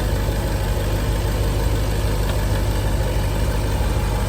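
A 2014 Range Rover Sport's supercharged 5.0-litre V8 idling steadily with a low, even hum.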